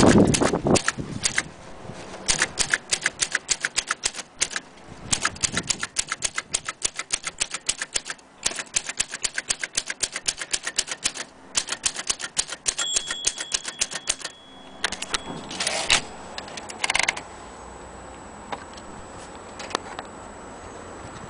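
Olympia SM3 Deluxe manual typewriter being typed on: fast, even runs of key strikes clacking for about twelve seconds. A few louder mechanical clunks follow, and then only faint ticks.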